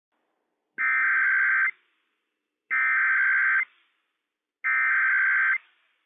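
Emergency Alert System SAME header sent over NOAA Weather Radio: three identical bursts of rapid digital data tones, each just under a second long, about a second apart. The header is the machine-readable opening of an alert, coding the event type, area and issuing station.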